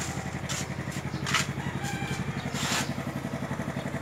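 Yamaha Mio Soulty scooter's small single-cylinder four-stroke engine idling steadily, with a few short hissing sounds over it.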